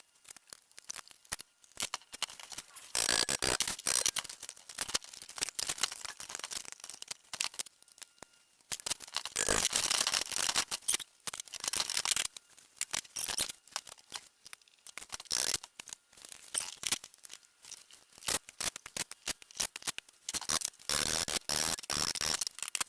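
Metal hand-tool work on the engine casing screws of an old Harley-Davidson golf cart motor: a screwdriver clicking and scraping as it is worked into and turned in the Phillips screws. The clicks come in several dense bursts with short pauses between them.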